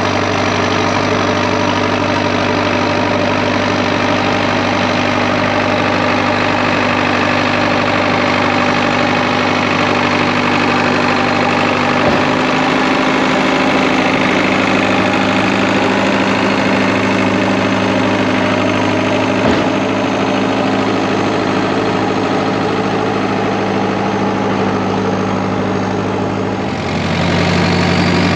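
International TD8E bulldozer's diesel engine running steadily, its note shifting about twelve seconds in and again near the end.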